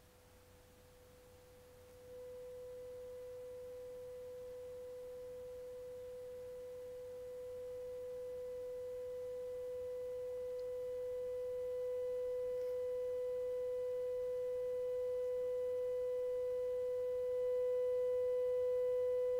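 A 500-hertz sine-wave test tone played through a Bugera V22 valve guitar amplifier's clean channel, with no reverb. It grows louder in several steps as the volume is turned up, and faint higher harmonics rise with it.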